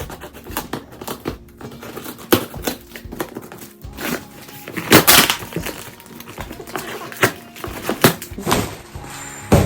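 Parcel packaging being opened by hand: irregular plastic and paper crinkling and crackling, loudest about five seconds in, over background music.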